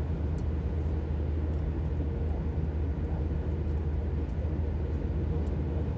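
Steady low drone of a car's engine and tyre noise heard inside the cabin while driving, with a few faint ticks.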